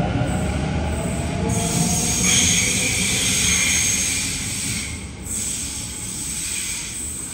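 Sydney Trains Waratah double-deck electric train pulling out of an underground platform: a rumble with a rising motor whine as it gathers speed. From about a second and a half in, a high-pitched squeal of the wheels on the curved track, which fades as the train draws away after about five seconds.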